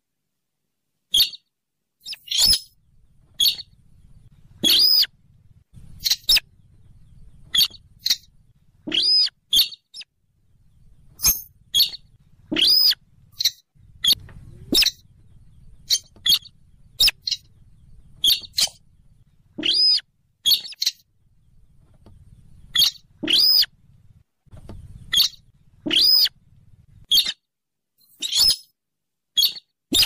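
Rail lure-call recording: short, sharp calls, many with a high note that arches and falls, repeating irregularly about once or twice a second, with a faint low rumble between them in stretches.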